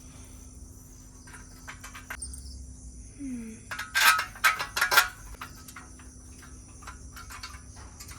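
A cluster of sharp metallic clinks and clanks about four to five seconds in, from metal sewing-machine stand parts being handled during assembly, over steady chirping of crickets in the background.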